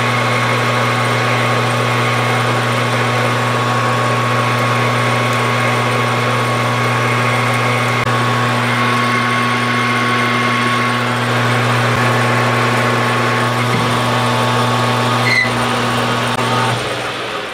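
Metal lathe running steadily with its motor hum and gear whine while a carbide tool takes a turning pass along a steel bar under power feed. Near the end the motor is switched off and the sound begins to die away.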